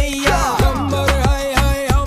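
Background music: an upbeat song with a steady, heavy beat and a bass line.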